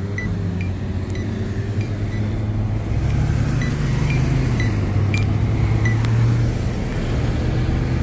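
Crosswalk push-button unit sounding short, high beeps about twice a second, over the steady rumble of road traffic that swells about three seconds in.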